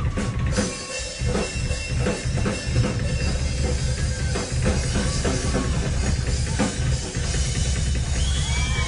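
Drum kit played solo on stage: dense bass drum and drum hits under steady cymbal wash. A few shouts and whoops from the audience come in near the end.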